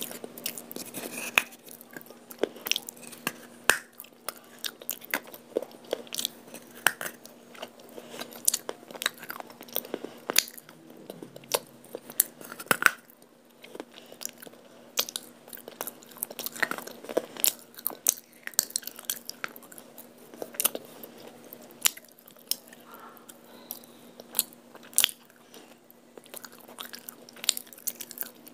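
Close-up crunching and chewing of a baked clay pot piece coated in Multani mitti paste: many sharp, irregular crunches as the fired clay is bitten and ground between the teeth.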